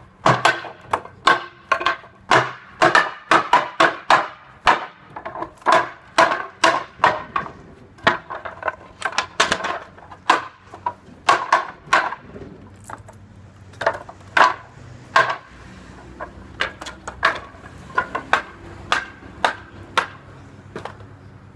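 A hammer and a meat tenderizer mallet pounding an object on a bench in rapid, uneven strikes, about two to three a second, with the blows growing sparser after about thirteen seconds.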